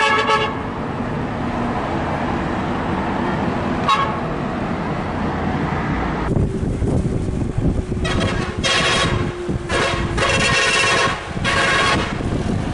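Coach bus horns blowing over engine and traffic rumble: a short blast at the start and a brief toot about four seconds in, then three more blasts in the second half, the middle one the longest.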